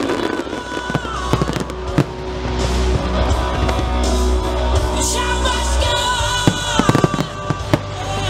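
Aerial firework shells bursting in sharp bangs, once about two seconds in and in a quick cluster near the end, over loud music.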